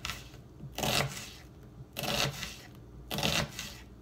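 Kitchen knife slicing through a red onion on a plastic cutting board: three slow cuts about a second apart, each a short scraping stroke.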